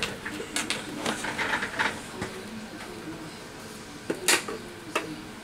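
Clicks, knocks and light rattling of tools and small parts being picked up and set down on a workbench, with the sharpest knock about four seconds in.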